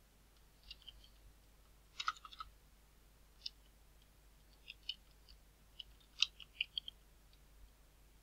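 Computer keyboard being typed on: faint, irregular key clicks in short clusters.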